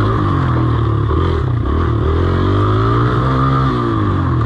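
Dirt bike engine running under the rider as it is ridden along a bumpy trail, its revs rising and falling with the throttle.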